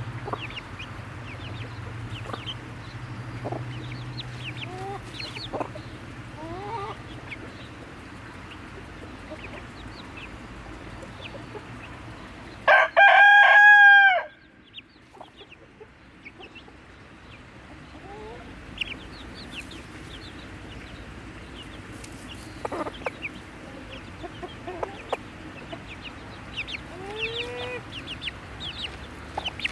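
Chickens clucking softly here and there, with a rooster crowing once, loudly, about halfway through.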